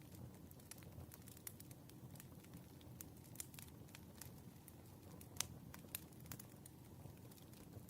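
Wood fire crackling: a soft low rush from the burning logs with scattered sharp pops and snaps, a louder pop about five and a half seconds in.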